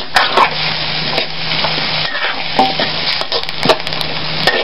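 Vegetables frying in a metal wok with a steady sizzle, a metal spatula scraping and clacking against the pan several times as they are stirred.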